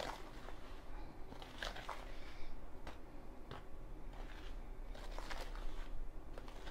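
A spoon stirring dry flour in a plastic mixing bowl: faint, irregular scraping with scattered light clicks.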